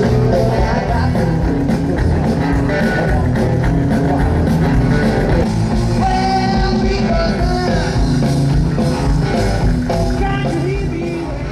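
Rock and roll music with a singer and guitar, with a steady beat.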